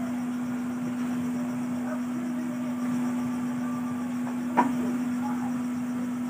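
A steady low hum, one unbroken tone, with a single sharp click about two-thirds of the way through.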